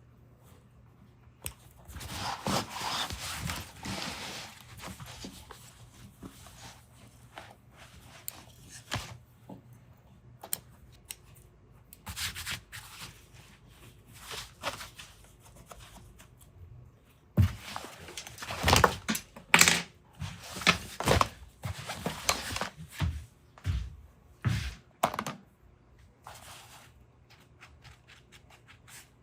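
Irregular rubbing, scraping and knocking as a work apron is handled on a workbench during a pocket repair, busiest in a run of sharp knocks and scrapes in the second half.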